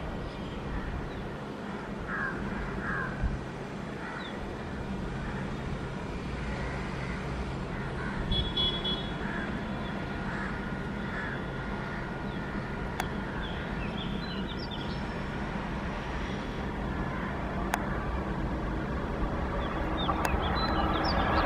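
Birds calling over a low, steady rumble that slowly grows louder as an express train hauled by a WAP-5 electric locomotive approaches.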